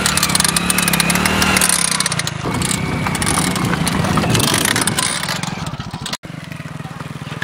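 Motorcycle engine revving unevenly while its nail-spiked front tyre spins on a board of upright nails, with a rapid clatter of clicks from the spikes. The sound cuts out for an instant about six seconds in, then a steadier engine sound follows.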